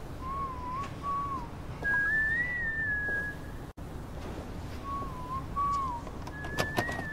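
A whistled tune, a short two-part melody heard twice: a lower wavering phrase followed by a higher, longer held phrase, over a steady low background hiss. A few sharp clicks come near the end.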